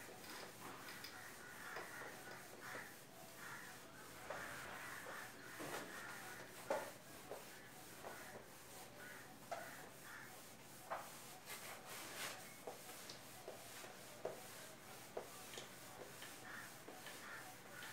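Whiteboard being wiped clean by hand: a faint run of repeated rubbing strokes across the board, with a few light ticks.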